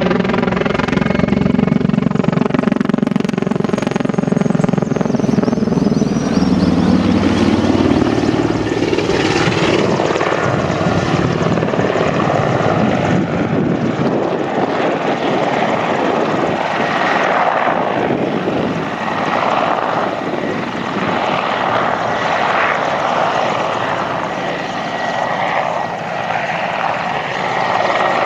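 Mi-24 attack helicopter flying a display: the beat of its main rotor and the sound of its twin turboshaft engines. The pitch rises over the first several seconds, then the sound turns into a rougher rush that swells and dips as it manoeuvres.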